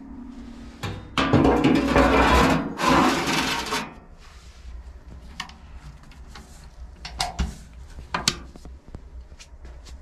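Sweeping and scraping around a solid-fuel boiler during cleaning: a loud scraping rush for about two and a half seconds, then several scattered sharp knocks.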